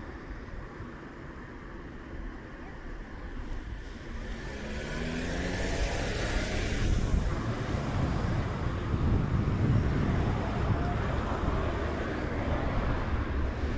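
A motor vehicle approaching on the street, growing louder from about four seconds in, followed by a steady low engine and tyre rumble through the second half.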